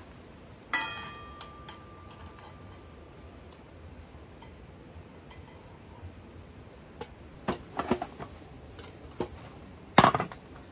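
Metal camping gear clinking on the hooks of a kitchen rack: one sharp clink about a second in rings on and fades over a couple of seconds. A few light knocks and clatters follow, and there is a louder knock near the end.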